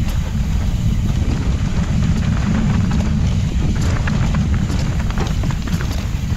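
Wind rumbling heavily on the microphone as a mountain bike rides down a dirt trail, with scattered irregular clicks and rattles from the tyres and bike over the ground.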